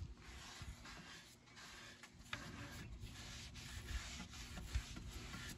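Cloth rag rubbing back and forth over a stained oak drawer front, wiping off excess stain in a run of faint strokes.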